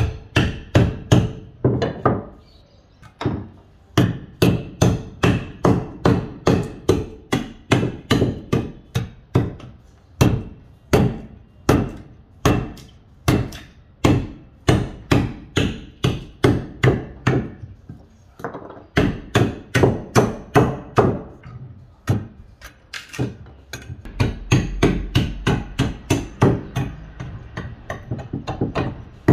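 Wooden mallet knocking dried earth off a rough piece of wood: repeated sharp blows, about two a second, with a few short pauses. Lighter, quicker knocks come near the end.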